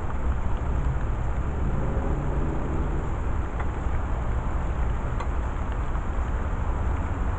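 Steady low rumble of vehicle noise, with a faint engine hum coming up about two seconds in and fading a second later.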